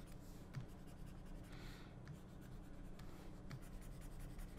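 Faint scratching of a stylus drawing short strokes on a graphics tablet, with a few light taps.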